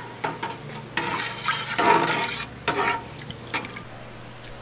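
Milk sloshing as it is stirred in a stainless steel stock pot with a long metal spoon, in uneven surges with a few light clicks of the spoon on the pot. This is rennet solution being stirred into warm milk for mozzarella.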